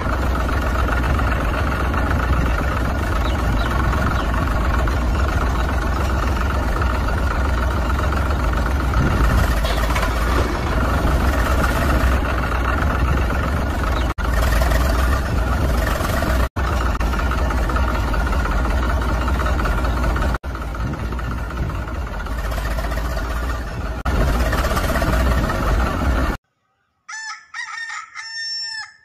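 A steady engine drone with a strong low hum, and a rooster crowing over it. The sound breaks off for an instant a few times, and near the end it gives way to a short electronic music jingle.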